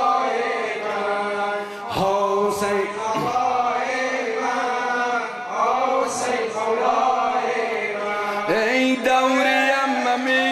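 A man chanting a Shia mourning lament (noha) over a microphone, holding and bending long drawn-out notes without clear words.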